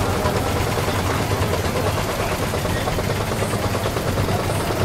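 A small wooden tour boat's engine running steadily at low speed, a constant low throb with a fast even pulse.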